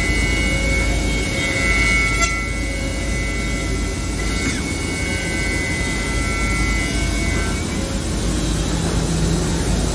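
Holztek HT-1325RBS CNC router running: a steady high spindle whine over a low, even machinery hum. The whine fades out about three-quarters of the way through, leaving the hum.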